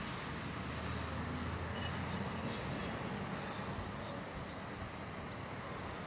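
Outdoor background noise with a steady low engine hum, like a vehicle idling or passing at a distance, that fades after the first couple of seconds.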